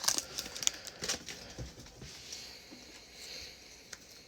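Light handling noise of Prizm football trading cards being flicked through, with several small sharp ticks in the first two seconds, then fainter rustling.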